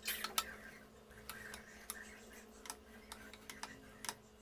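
Faint, scattered light clicks and taps of burgers being handled and turned over by hand on a flat non-stick griddle (dosa tawa), the busiest in the first half-second, over a faint steady hum.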